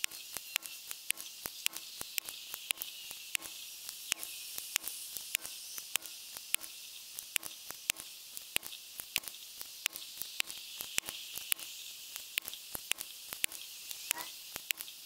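A .22 PCP air rifle being shot again and again through a chronograph, the run sped up so that each shot is a sharp click, about two a second, over a steady high hiss.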